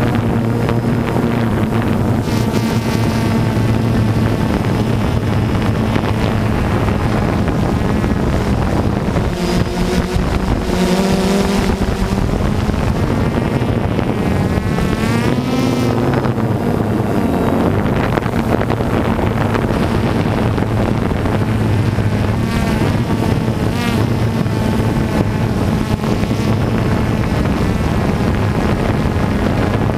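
DJI Phantom 2 quadcopter's electric motors and propellers, heard from the camera riding on it: a loud, steady buzzing whine whose pitch slides up and down several times as the drone manoeuvres, with some wind on the microphone.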